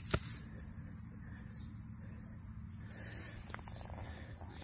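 Insects chirring steadily at a high pitch, with a single sharp click just after the start.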